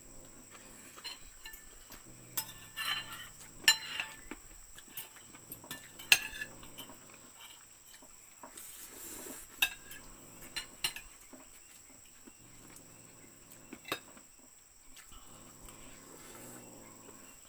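Cutlery clinking and scraping against plates while eating, in scattered sharp clicks.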